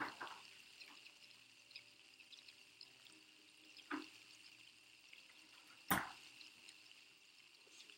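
Faint steady hiss with three short sharp clicks or knocks: one at the start, one about four seconds in, and the loudest about six seconds in.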